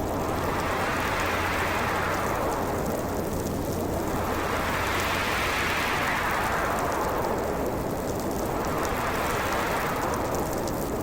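Snowstorm wind howling in gusts that swell and fade about every four seconds, rising and falling in pitch, over a steady hiss.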